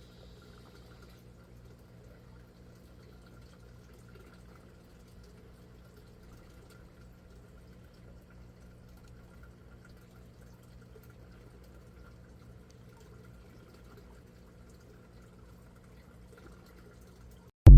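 Faint steady trickling and pouring of water in an aquaponics system, over a low steady hum. A loud burst of music cuts in right at the end.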